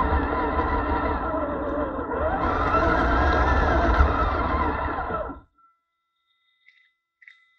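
Drivetrain of an RC scale Ford truck heard from a camera mounted on the truck: motor and gear whine wavering in pitch with throttle over a low rumble as it crawls over rough ground. It cuts off suddenly about five and a half seconds in as the truck stops, leaving only a faint steady whine.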